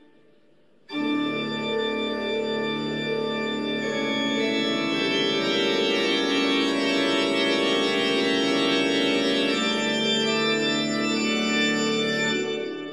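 Organ music: after a brief quiet, a held chord begins suddenly about a second in, sustains steadily, and fades out near the end.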